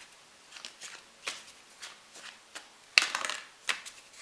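Tarot cards being handled and laid down: light, irregular card taps and flicks, with the loudest cluster about three seconds in.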